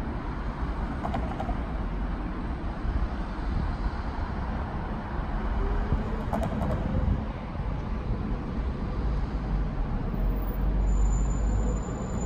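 Bernmobil Be 4/8 articulated tram approaching and rounding a track curve, its running noise rising over steady street-traffic and wind rumble. A thin high wheel squeal starts near the end.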